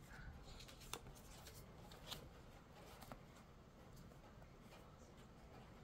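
Faint handling of tarot cards, a card slid off the deck and laid on a pile, with a few soft clicks about one, two and three seconds in.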